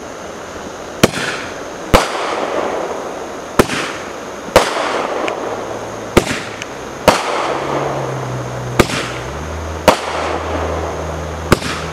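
A military Roman candle firing star after star: nine sharp pops about a second to a second and a half apart as each star is shot from the tube, with a rushing hiss between shots.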